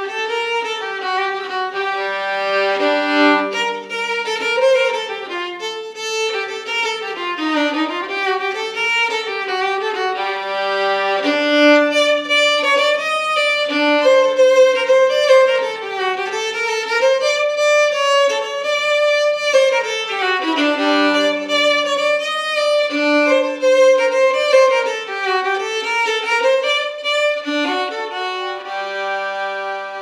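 Solo violin playing a slow melody, often sounding two notes at once, over a faint low held note.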